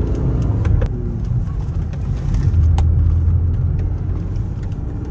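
Mercedes-Benz car's engine and tyre noise heard from inside the cabin while it is driven fast on a narrow winding road: a steady low engine drone that strengthens in the middle, with a few sharp clicks.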